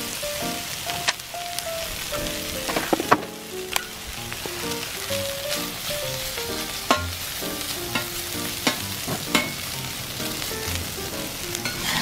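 Sliced meat sizzling hard on a steel griddle plate over a wood fire, with metal spatulas scraping and clicking against the plate several times as it is turned. The plate is far too hot: the meat scorches almost at once.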